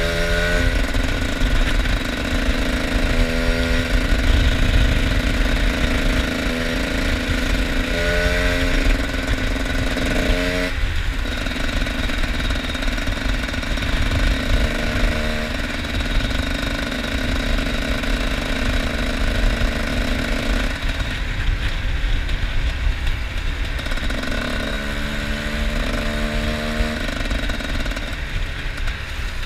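Two-stroke off-road motorcycle running under way, its pitch stepping up and down as the revs change. The pitch drops sharply about eleven seconds in and eases off for a while past the twenty-second mark.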